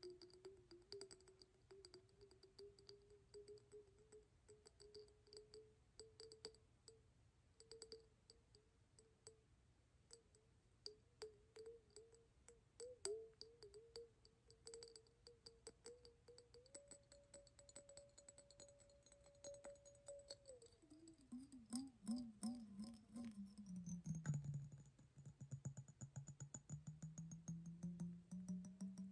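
Fingernails tapping quickly on a glass mason jar, with a ringing tone under the taps. The tone holds steady, slides lower about two-thirds of the way through, then rises a little.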